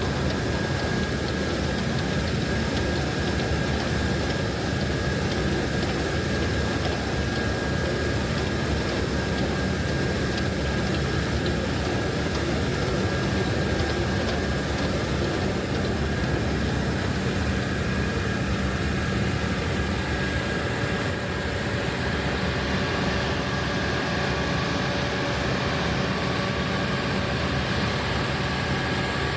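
Heavy farm machinery running steadily: a low engine drone with a thin, steady high whine over it.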